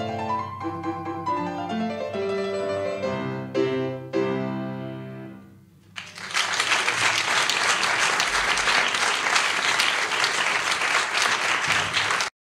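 Piano playing the closing bars alone, ending on chords that ring out and fade. About six seconds in, audience applause starts and carries on steadily until it cuts off suddenly near the end.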